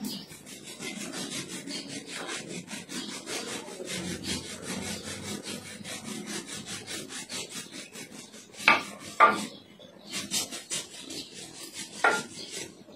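Quick, steady back-and-forth rasping of a hand-held scrubber worked against the heel, scraping off hardened skin, with a few sharper knocks about two-thirds of the way through and near the end.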